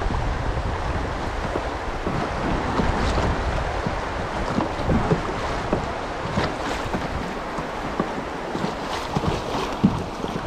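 Fast river water rushing and churning through a shallow riffle around a kayak, with wind rumbling on the microphone and scattered small splashes.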